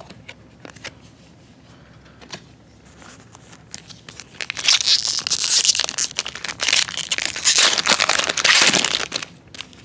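A foil baseball card pack wrapper being torn open and crinkled by hand: a few soft handling clicks, then, about halfway through, several seconds of loud crackling and tearing.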